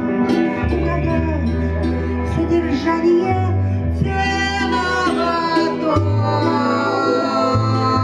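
Live band music led by electric guitar, with low held notes that shift every second or two beneath the chords.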